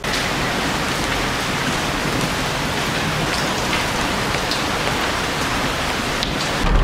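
Heavy rain pouring onto paving stones: a steady, dense hiss with scattered sharper drop ticks.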